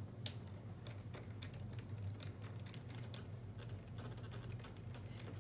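Scattered light clicks and taps of small tools and metal parts as a shock is taken off a radio-controlled car, over a steady low hum.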